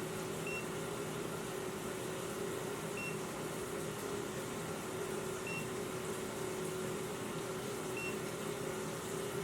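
Carbon monoxide detector giving a short, high beep about every two and a half seconds, four times, over a steady low hum.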